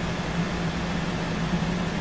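Steady background hiss with a low, even hum underneath and no distinct events.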